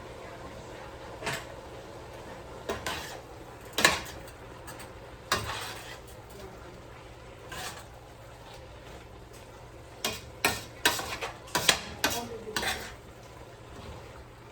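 Pots, lids and utensils clinking and knocking against each other in a kitchen, a few separate knocks and then a quick run of clatter near the end, over a steady low hum.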